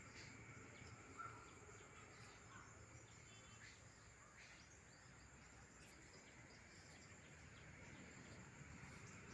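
Faint outdoor background with a few brief, faint bird chirps, one about a second in and a few more scattered later.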